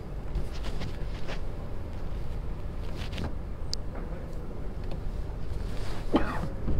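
Steady low rumble of a large indoor bowls hall's room tone, with a few faint short sounds, a brief high squeak about four seconds in and a louder short sound about six seconds in.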